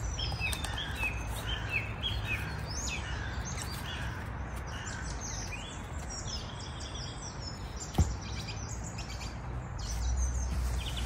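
Birds chirping and singing in the background over a low steady rumble of outdoor noise. About eight seconds in, a single sharp knock of the knife striking the wooden chopping board.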